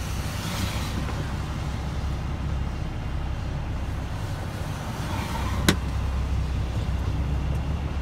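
Semi truck's engine and road noise heard from inside the cab: a steady low rumble as the truck creeps up an icy incline in slow traffic. One sharp click a little past halfway.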